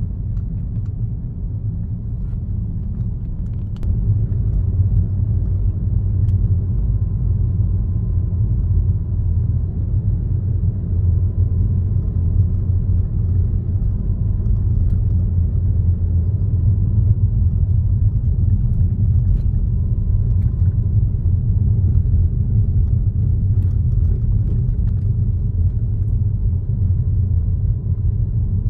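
Car driving along a road: a steady low rumble of tyres and engine that grows louder about four seconds in, with a faint steady whine above it.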